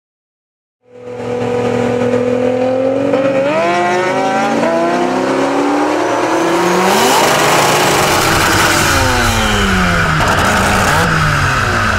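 A high-performance car engine accelerating hard, its pitch climbing and then dropping several times as it shifts through the gears, starting about a second in after silence. From about halfway, a loud rush of noise builds under the engine.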